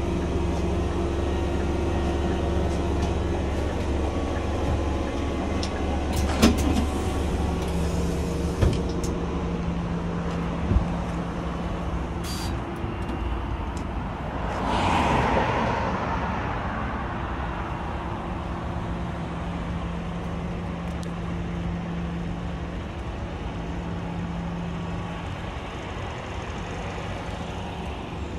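Scania Omnilink city bus's diesel engine running with a steady low hum. A few sharp clicks and a brief hiss come in the first half. About halfway through, a broad swell of noise rises and fades, and a softer rumble goes on after it.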